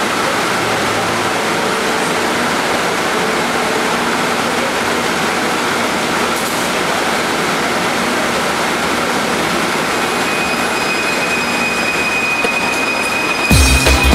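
Bombardier ART automated metro train on the Kelana Jaya Line, standing at the platform and then pulling out. It makes a steady rushing noise with a faint hum, and a steady high whine comes in about ten seconds in as it moves off. Music cuts in at the very end.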